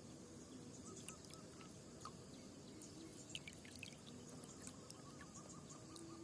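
Near silence: faint outdoor ambience with scattered soft ticks and a faint run of small repeated chirps, clearest near the end.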